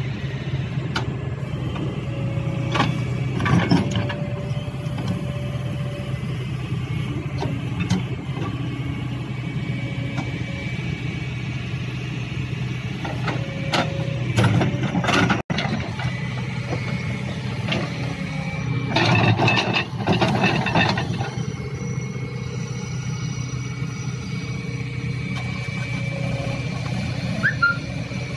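Excavator diesel engine running steadily under load, with a faint hydraulic whine, while its bucket dumps soil into a steel truck dump bed: louder bursts of falling earth and rattling about 3 seconds in, near the middle, and again at about 19 to 21 seconds.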